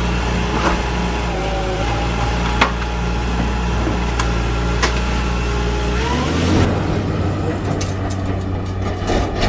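Heavy vehicle engine running steadily with a low hum and a few sharp knocks, then revving up with a rising pitch about six seconds in.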